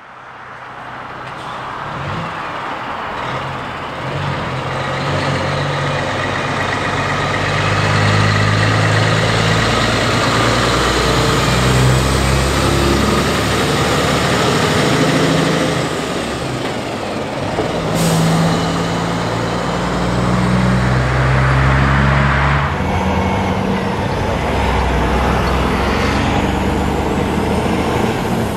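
Heavy diesel prime movers, a Kenworth and a Scania, hauling race-car transporter trailers past one after another. Their engine notes rise in at the start and step up and down in pitch through gear changes. A brief sharp hiss comes about two-thirds of the way through.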